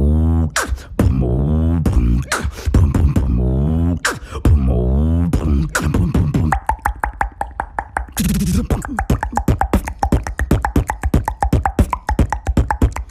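Human vocal beatboxing. For roughly the first half, a deep droning bass swoops down in pitch about every two seconds under kick-and-snare clicks. After that comes a faster run of hi-hat-like clicks over a held humming tone, with a loud hiss about eight seconds in.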